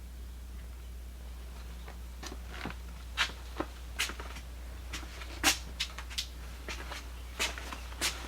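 Packaging being handled: irregular crackles and clicks that start about two seconds in, over a steady low electrical hum.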